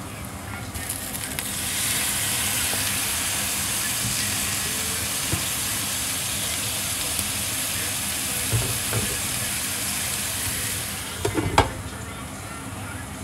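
Food sizzling as it fries in a hot pan: the sizzle swells about a second and a half in, holds steady, and drops away near the end, followed by a few quick knocks.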